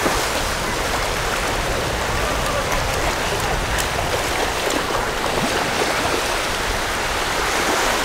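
Small sea waves washing onto a shallow sandy shore: a steady, even hiss of surf at the water's edge.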